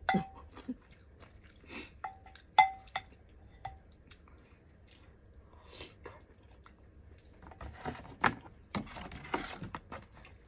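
A handful of sharp clinks of a utensil against dishware, each with a brief ringing tone, in the first four seconds; then close-up wet chewing and slurping of a spoonful of seaweed soup and rice, with mouth clicks and smacks, in the last few seconds.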